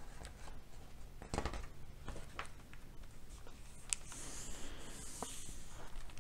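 Quiet paper handling on a hardcover picture book: a page being turned, then hands sliding over and pressing down the paper, with scattered soft rustles and taps.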